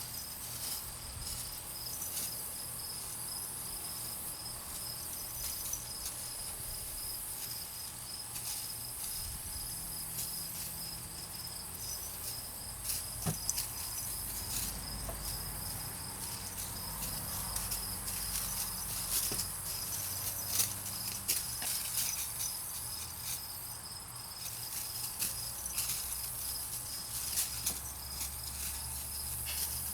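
Insects chirping steadily in a high, continuous pulsing drone, with scattered light clicks and rustles over it.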